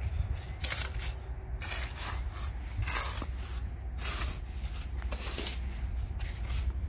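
A shovel digging and scraping in loose sand, with a short gritty scrape about once a second, over a steady low rumble.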